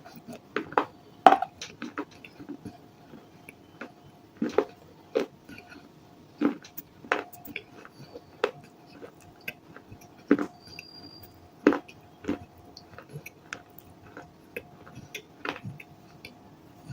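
Close-up chewing and crunching of baked clay pieces (kulhad and diyas) in the mouth: irregular sharp crunches, a few a second and uneven in strength, with a faint steady hum underneath.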